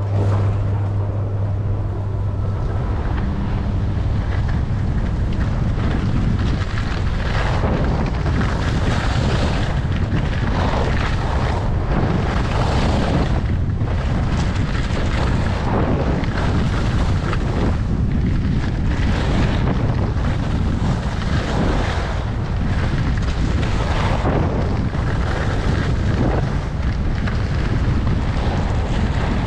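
Wind buffeting the microphone of a fast downhill skier, with the hiss of skis on snow swelling and fading about every second as turns are linked.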